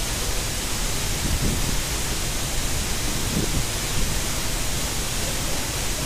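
Steady rushing roar of a waterfall's falling water, an even hiss with a few faint low rumbles under it.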